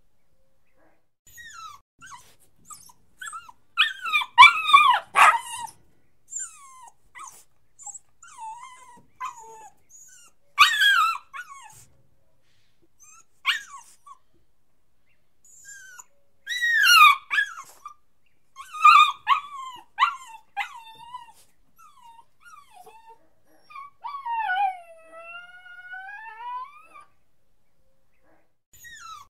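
Puppy whining and crying: high, wavering whimpers that come in bursts with pauses between, several of them louder clusters of yelping cries, and one long drawn-out whine about three-quarters of the way through.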